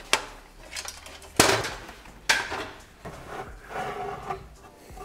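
Wooden boards knocking and clattering as they are pulled down from a metal shelving rack, with two sharp bangs about a second and a half and two and a half seconds in and lighter knocks between.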